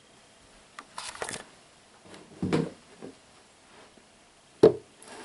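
Clear plastic door of a reptile cage being handled and shut: a few light clatters about a second in, a dull thump about halfway, and a sharp knock near the end, the loudest of them.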